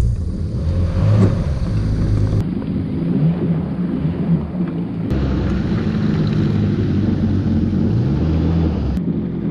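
Yamaha WaveRunner personal watercraft engine running steadily on the water, its pitch drifting up and down a little with the throttle.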